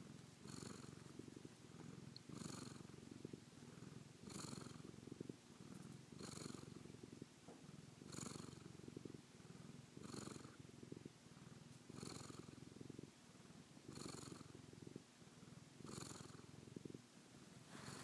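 Domestic cat purring right against the microphone: a low, rapidly pulsing rumble that swells and eases with each breath, about once every two seconds.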